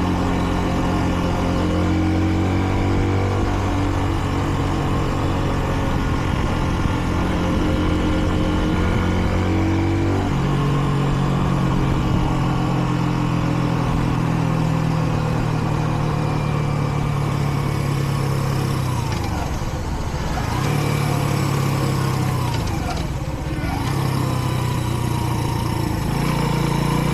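A Kreidler Dice CR 125 motorcycle's 125 cc single-cylinder engine running under way at moderate, running-in revs. Its tone shifts about a third of the way in, drops briefly twice in the second half as the throttle eases off, and rises again near the end as it accelerates.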